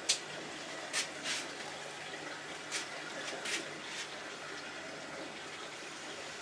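Steady running and trickling water in goldfish aquarium tanks, with five short, sharp sounds in the first four seconds.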